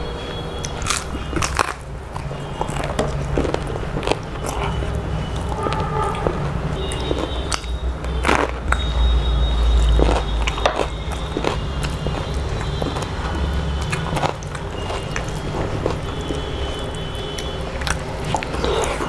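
Close-miked eating sounds: irregular crisp bites and chewing, and fingers mashing rice on a plate, over a steady low hum.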